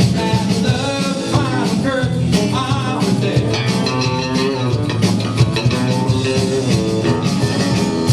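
A rock band playing, with guitar over a drum kit and a melodic line that slides up and down in pitch.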